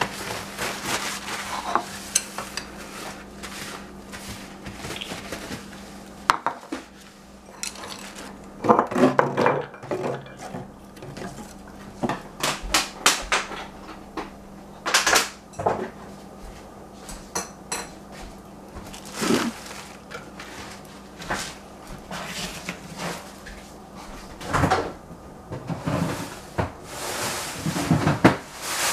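Dishes and kitchen utensils being handled on a tiled kitchen counter: irregular sharp clinks and knocks, some ringing briefly, with pauses between them, over a faint steady hum.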